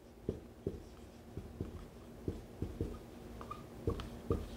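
Dry-erase marker writing on a whiteboard: a faint string of short, irregular strokes and taps, with a few light squeaks of the tip near the end.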